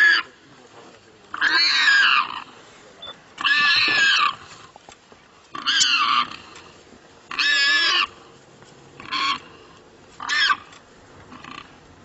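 Warthog squealing in distress while held in a leopard's bite: about six loud, high squeals, one every second and a half to two seconds. They grow shorter and weaker toward the end.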